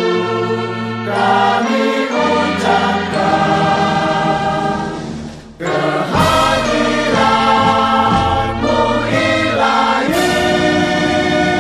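Choir singing a slow anthem-like song in Indonesian over music, in long held chords; the sound dips briefly a little past halfway and then comes back in.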